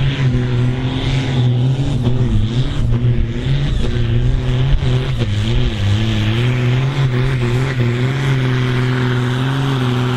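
Ford farm tractor's diesel engine running flat out under full load while pulling a weight-transfer sled, with black smoke from the stack. The engine note holds mostly steady, its pitch wavering and dipping briefly a few times.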